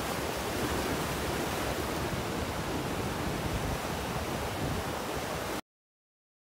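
Sea waves breaking and washing in over a rocky shore: a steady rush of surf that cuts off suddenly near the end.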